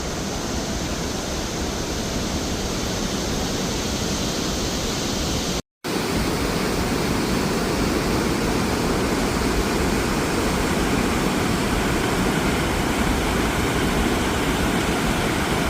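Steady rushing noise with no distinct events, broken off by an edit cut about six seconds in and then resuming.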